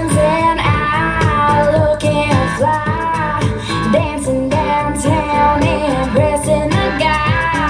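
Pop song with a female lead vocal over guitar and a steady drum beat, played back through a compact powered PA speaker.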